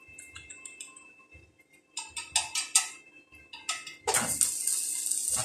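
Stick (arc) welding on steel channel: a few short sputtering arc strikes, then a crackling, hissing arc held for about a second and a half that cuts off suddenly as the tack weld ends.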